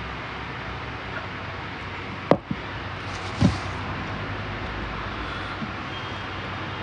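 A steady background hiss with a sharp click a little over two seconds in, a smaller click just after it, and a dull thump about a second later: handling sounds of a meal being eaten.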